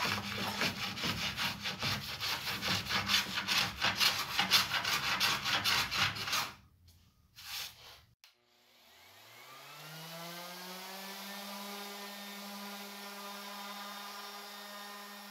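WoodRiver No. 4 bench plane taking quick repeated strokes, shaving the excess maple of an inlaid ring flush with the board. After a short pause, a random orbit sander starts up about eight and a half seconds in with a rising whine and then runs at a steady pitch.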